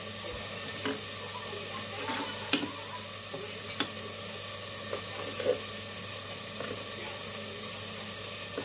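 Steady sizzling hiss of food frying, with a few light knocks of a serrated knife on a wooden chopping board as raw chicken is sliced.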